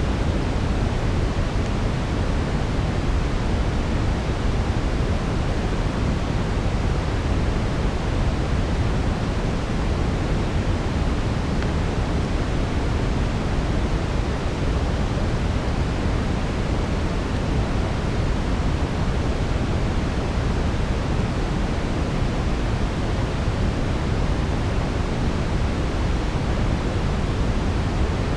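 Steady brown noise: a deep, even rushing noise, strongest in the low end, with no separate crackles standing out.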